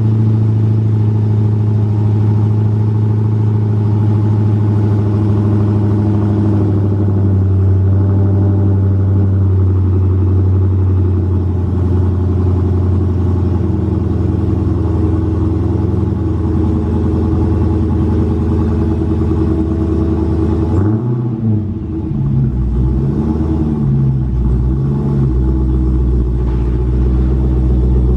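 Dodge Hellcat's supercharged 6.2-litre Hemi V8 running at a steady fast idle shortly after a cold start. About 21 seconds in, the note drops and wavers for a few seconds before settling into a lower, steady idle.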